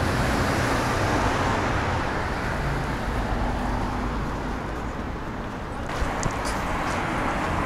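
City street traffic: cars driving past on the road, a steady rush of engine and tyre noise, a little louder in the first couple of seconds.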